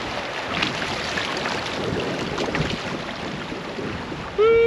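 Creek current rushing around a kayak through a choppy riffle, with wind on the microphone. Near the end a loud steady tone starts and holds for under a second.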